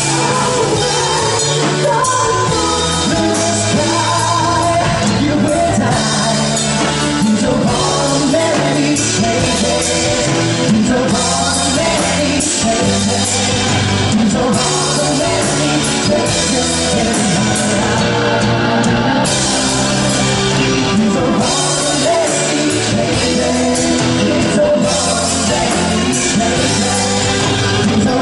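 A band playing a song, with a singer's voice carried over the accompaniment throughout.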